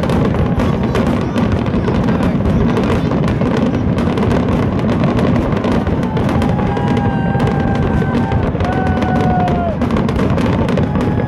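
A dense barrage of aerial fireworks shells bursting: continuous rapid bangs and crackling over a low rumble. A little past the middle, a held whistle-like tone sounds over the barrage for about three seconds and drops in pitch as it ends.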